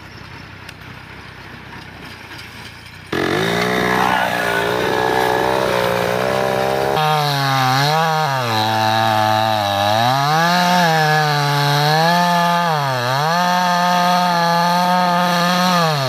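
Large Stihl two-stroke chainsaw running at high revs, cutting into a tree trunk at its base. Its pitch dips and recovers several times as the chain bites into the wood. It comes in suddenly about three seconds in, after low background noise.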